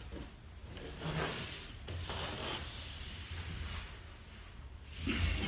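A shirt's sleeves and arms rubbing and sliding along a wall as they sweep up and down: a few soft rubbing scrapes.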